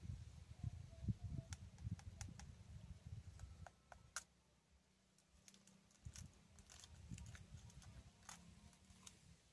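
Faint, irregular low rumble with about a dozen scattered, faint, sharp clicks, a few with a brief ringing tone.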